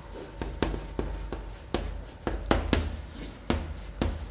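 Chalk writing on a blackboard: a series of sharp, irregular taps and short scrapes as the letters are written.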